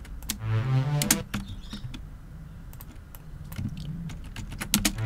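Clicking of a computer mouse and keyboard, with three short synth notes stepping upward in the first second and a half. The notes come from a reFX Nexus pad whose release and decay have been cut short so it plays as stabs.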